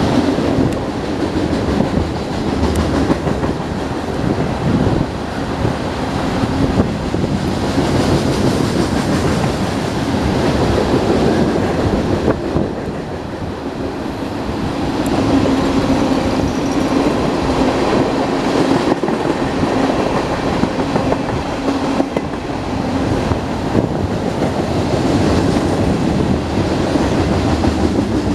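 Union Pacific mixed freight train rolling past, a steady rumble of steel wheels on rail with clickety-clack over the joints, dipping slightly in loudness about halfway through.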